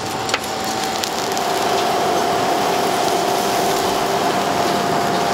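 Fish grilling in a hinged wire basket over red-hot charcoal: a dense hiss of crackling and sizzling with scattered sharp pops, over a steady hum.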